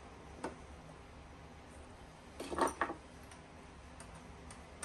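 Light metallic clicks, then a short clinking rattle about two and a half seconds in, from small screws being fitted by hand into the side of a metal rack-mount chassis.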